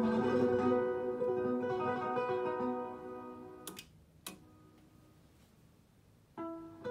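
Music from a CD playing through a Sony TA-F3000 integrated amplifier fades away, then two sharp clicks about half a second apart as the amplifier's input selector is turned. After a short quiet gap the music cuts back in abruptly near the end.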